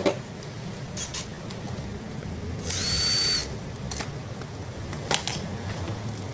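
Handling clicks and knocks as a rice cooker is unplugged from a power meter and lifted, with a brief high-pitched whir about three seconds in, over a steady low hum.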